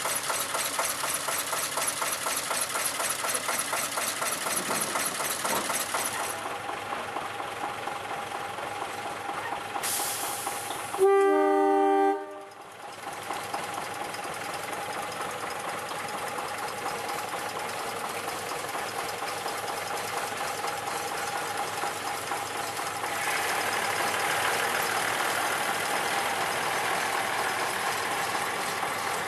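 Small narrow-gauge diesel locomotives idling, with a loud blast of a multi-note diesel locomotive air horn sounding a chord for about a second and a half just under halfway through. An engine grows louder near the end.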